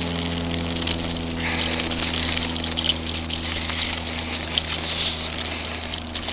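Mountain bike rolling fast over loose, rocky singletrack: a steady rush of tyre noise and wind with scattered clicks and knocks from the stones and the bike. A steady low hum runs under it.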